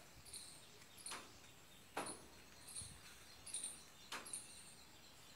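Faint high chirps, short falling notes repeating a little more than once a second, from a small animal in the garden. Three sharp taps break in, the loudest about two seconds in.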